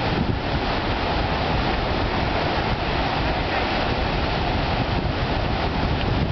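Sea surf breaking and washing up a sandy beach, with wind buffeting the microphone.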